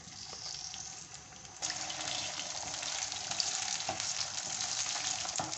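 Potato sticks frying in hot oil in a karahi, a steady crackling sizzle. It turns suddenly louder and denser about a second and a half in, once the full batch of potatoes is in the oil and being stirred with a wooden spatula.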